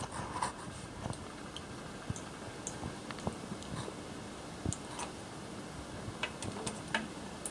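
Scattered light clicks and taps of a compression tester's hose and threaded fitting being handled and screwed into a spark plug hole in an aluminium cylinder head, over a low steady background hiss. The ticks come more often in the second half.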